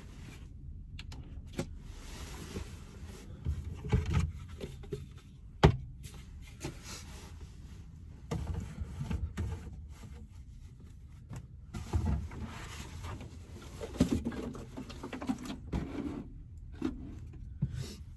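Scattered knocks, clicks and rustling of dishes and cooking gear being handled and gathered up for washing, with one sharp knock about six seconds in.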